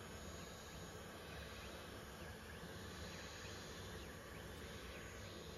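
Elegoo Neptune 4 Pro 3D printer running faintly while printing a first layer: a steady hum from its fans and stepper motors, with a few faint high chirps as the print head moves.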